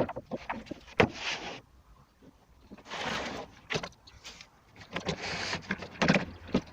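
Workshop handling noises: sharp knocks and clicks with three short scraping or sliding sounds a couple of seconds apart, with no saw running.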